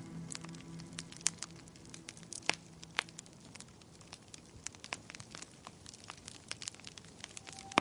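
Wood fire in a fireplace crackling, with irregular sharp pops and snaps, a few of them louder; a held soft music chord dies away about three seconds in.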